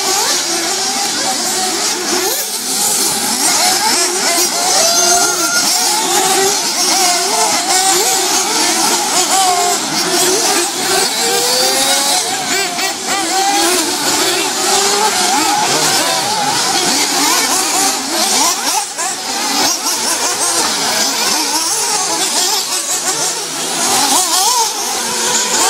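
Several 1:8 scale nitro RC buggy engines racing at once. Their high-pitched buzzing overlaps and keeps rising and falling in pitch as the cars accelerate and brake around the track.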